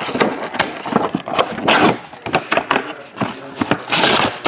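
Plastic wrapper and card packs being handled on a table: a quick run of crinkles, scrapes and rustles, with a louder crinkle near the end.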